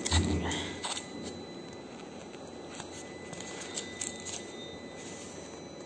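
Styrofoam box with packing tape being pried open along its slit seam: scraping and crackling, loudest in the first second, then a few faint handling clicks.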